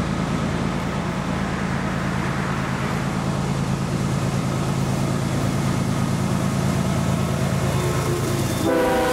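Diesel engines of CSX's GE wide-cab locomotives running steadily as the train approaches and passes close, growing slowly louder. Near the end the lead locomotive's horn sounds a held multi-note chord.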